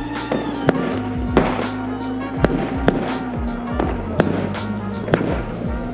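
Aerial fireworks battery going off: about seven sharp bangs at irregular intervals, half a second to a second apart, over background music.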